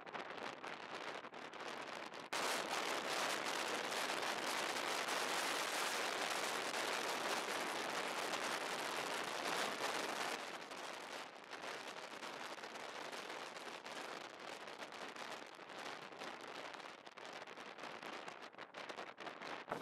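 Rushing, crackling wind noise on the microphone of a moving follow vehicle, mixed with road noise. It jumps sharply louder about two seconds in and eases back about halfway through.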